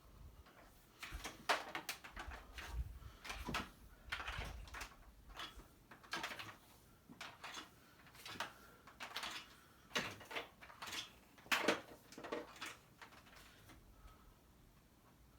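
Irregular knocks, clicks and rattles of things being handled and moved, loudest about a second and a half in and again near eleven and a half seconds; no motor is running.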